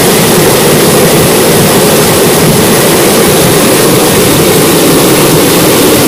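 Small waterfall pouring over rock into a pool: a loud, steady rush of water.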